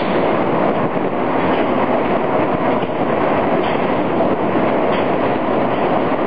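Towing-tank carriage running steadily along its rails as it tows a rowing shell through the water: a continuous, even rolling noise with water rushing along the hull.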